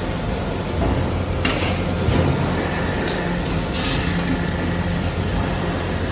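Factory machinery running with a steady low hum, with three short hisses about one and a half, three and four seconds in.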